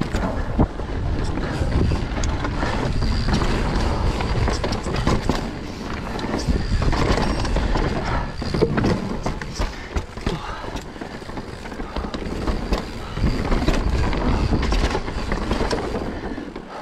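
Mountain bike ridden fast downhill, with tyres rolling over dirt, roots and wooden boardwalk slats, and the bike rattling and knocking over the bumps. Wind rumbles on the camera microphone.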